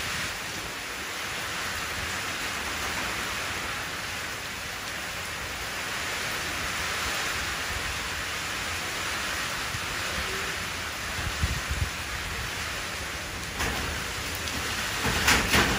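Steady rain falling into a shallow puddle, an even hiss of drops hitting the water. A few sharp taps come through near the end.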